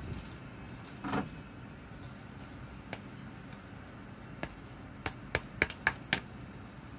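Hot oil in a nonstick frying pan popping around a frying grated sweet potato patty: scattered sharp pops over a faint sizzle, coming in a quick run of five or six near the end.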